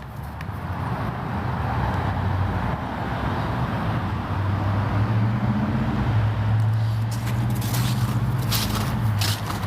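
A motor vehicle driving past on the street: road noise builds over the first couple of seconds, and a low engine hum is strongest in the middle and fades near the end.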